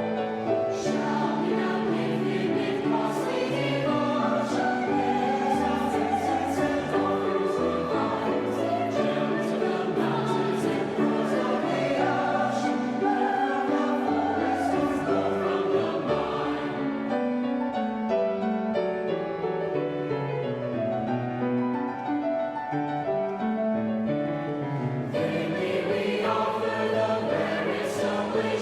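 Youth choir singing a sacred choral anthem in parts. In the second half the sound thins for several seconds before the full choir returns near the end.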